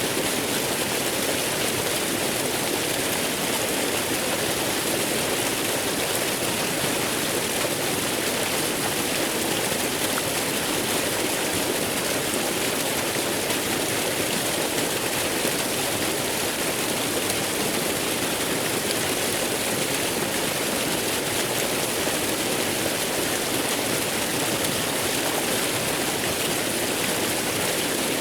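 Waterfall: falling water rushing steadily with no change.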